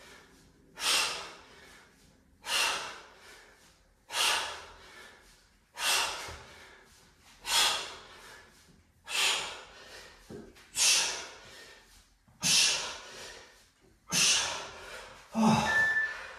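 A man exhaling hard through the nose with each kettlebell swing, a sharp breath out about every second and a half, ten in all. Near the end an interval timer starts beeping, marking the end of the work period.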